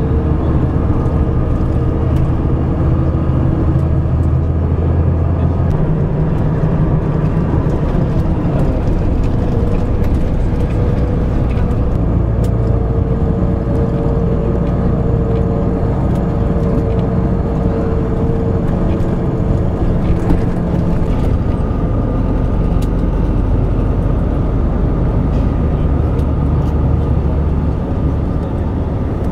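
Engine and road noise of a moving vehicle heard from inside the cabin: a steady drone whose engine note changes pitch about six seconds in, as with a gear change.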